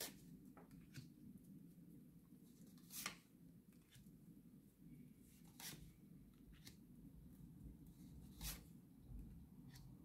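Near silence with faint rustles and five light taps of tarot cards being handled and laid out, over a low room hum.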